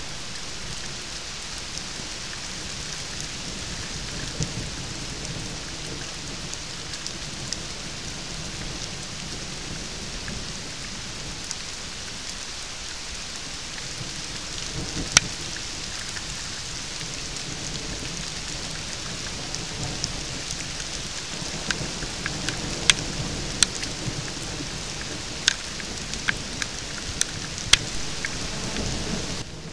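Steady rain falling on the forest floor and leaves, with sharp single taps of drops striking close to the microphone, sparse at first and coming more often in the last third.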